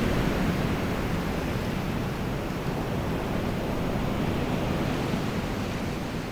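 Steady rushing noise with no tones or beat in it, heaviest in the low end.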